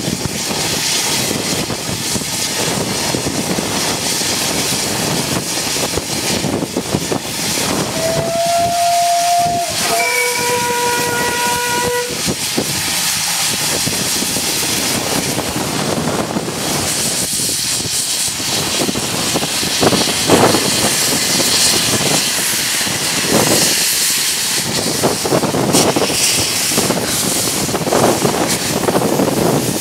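Small saddle-tank steam locomotive hissing steadily, sounding two whistle blasts about eight seconds in, a short one and then a longer, lower one. It then pulls away with slow, uneven exhaust chuffs and steam hissing from around its cylinders.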